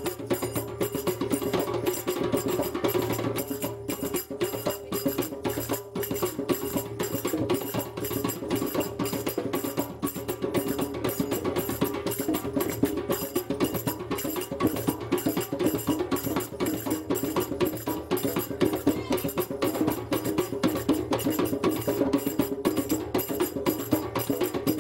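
Live hand drums playing a fast, steady rhythm, with continuous quick strikes.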